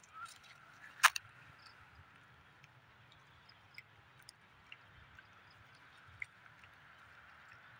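Quiet outdoor ambience with a faint steady hiss, broken by one sharp click about a second in and a few faint ticks after it.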